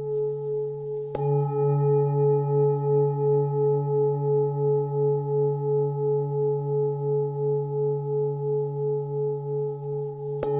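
24.5 cm Full Moon singing bowl struck with a felt mallet about a second in and again near the end, ringing with a low D fundamental near 142 Hz and a G-sharp overtone near 425 Hz. The ring pulses in a slow wavering beat about twice a second.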